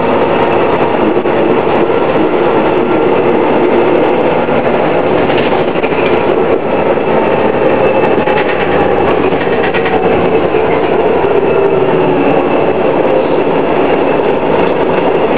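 Detroit Diesel Series 50 engine and Allison B400R automatic transmission of a 2000 New Flyer D60 articulated diesel bus, running steadily with a whine.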